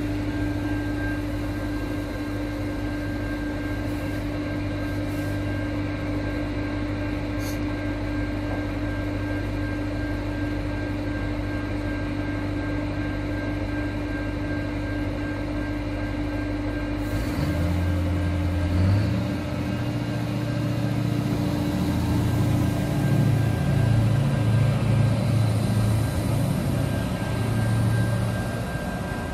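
Diesel railcar engine running steadily with a low hum and a constant tone, then about 17 seconds in the engine note changes, its pitch stepping up and down and getting louder as the train powers up, easing off near the end.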